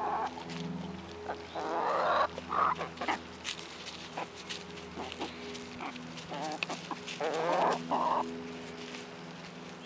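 A small flock of backyard laying hens (Orpington, Ameraucana, Barred Rock and black sex link) clucking in short calls while pecking at bread on the ground, over a steady low hum.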